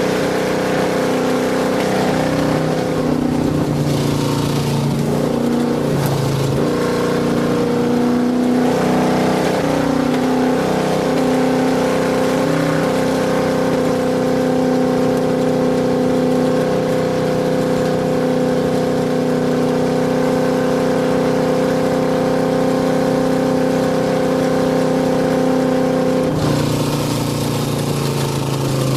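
Race truck's engine running hard under load, its pitch shifting several times in the first ten seconds, then holding steady for a long stretch and changing again near the end.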